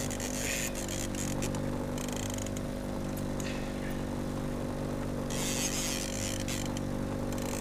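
Boat's outboard engine running steadily at trolling speed, a constant low hum, with a few short bursts of hiss.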